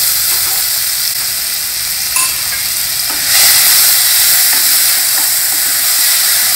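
Chopped onions sizzling in hot oil in an open pressure cooker, stirred with a wooden spatula. The sizzle gets louder a little past three seconds in.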